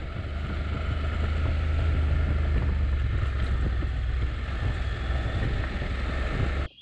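Riding noise from a Honda NC750X motorcycle on a gravel road: wind rushing over the camera's microphone over the low, steady drone of the engine. It cuts off suddenly near the end.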